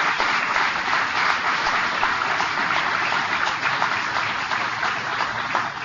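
Crowd applauding steadily, a dense patter of many hands clapping, dying down near the end.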